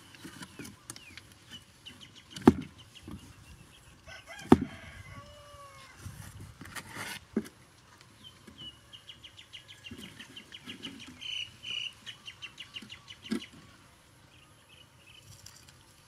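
Sharp taps and clicks as bamboo sticks are handled against the cardboard trap, with bird calls behind them, chickens among them, including a rapid run of short high chirps about nine to twelve seconds in.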